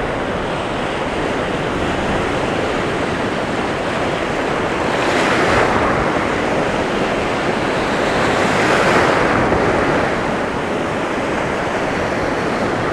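Ocean surf breaking and washing around, with wind buffeting the microphone. The wash surges louder twice, about five and eight seconds in.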